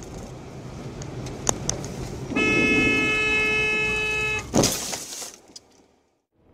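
A car horn held in one long blast of about two seconds, over engine and road noise. A single loud sharp knock follows right after the horn stops.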